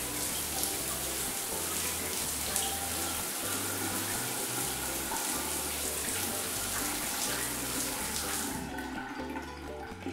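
Shower water running, a steady hiss that stops abruptly about eight and a half seconds in, over soft background music.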